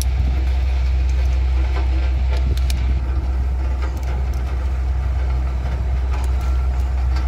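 Diesel engines of road-repair machinery running steadily, the single-drum road roller nearest, giving a loud, deep, even hum, with a few short faint clicks over it.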